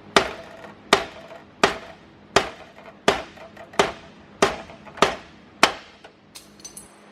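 Hammer blows on metal, about nine steady strikes a little under a second apart, each with a short ring, stopping about six seconds in. This is work to free the old steering assembly.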